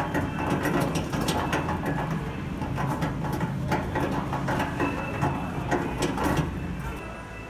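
A loaded flatbed store cart rolling over a concrete floor, its wheels and frame rattling with many quick clicks and knocks over a steady low hum. The rattling dies down near the end.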